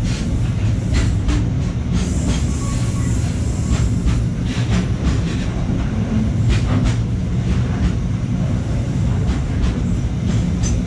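Electric commuter train running on the track: a steady low rumble with irregular clacks of the wheels over rail joints.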